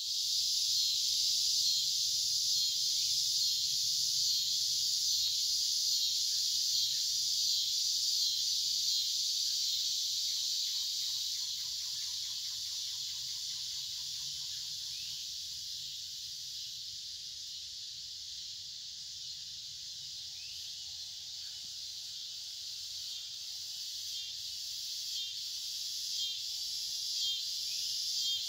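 Evening insect chorus: a steady, high-pitched, shrill buzzing drone of many insects, with a brief, lower pulsing trill about ten seconds in.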